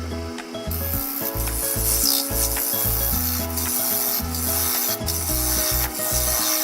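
Sandpaper rasping on a wooden plate turning on a wood lathe, a steady hissing rub that starts under a second in. Background music with a moving bass line plays throughout.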